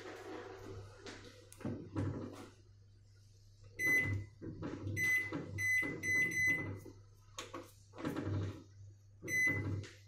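Keypad buttons on an Onida Smart Chef microwave being pressed to set the cooking time, most presses giving a short, high electronic beep: a cluster of about five beeps in the middle and one more near the end. Soft clicks and knocks from the panel fall between them over a steady low hum.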